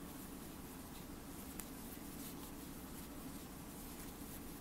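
Faint scratching and rustling of a crochet hook and yarn as single crochet stitches are worked, with soft irregular ticks over a low steady hum.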